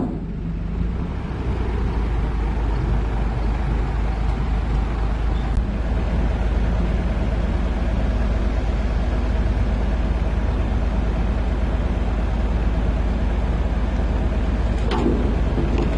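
Heavy diesel engine running steadily at a constant speed, with a short knock near the end.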